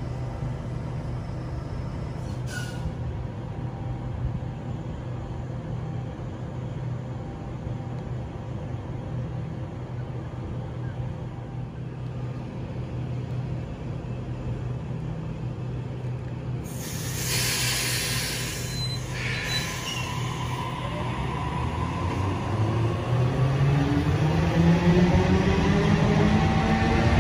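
Sydney Trains Waratah Series 2 (B set) electric train standing with a steady low hum. About two-thirds through there is a loud hiss of air as the brakes release, then the rising whine of its traction motors, in several tones at once, as it pulls away and picks up speed.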